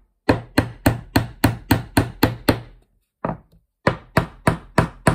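Claw hammer tapping staples the rest of the way into a thin wooden board: quick, light strikes about three a second, a short pause about three seconds in with a single tap, then another run of strikes.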